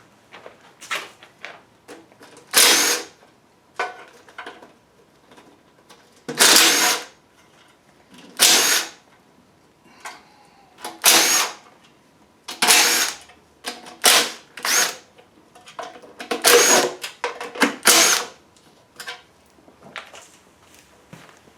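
A power tool runs in about a dozen short, loud bursts, each under a second, with pauses between them. It is undoing fasteners on a Ford V8 being torn down.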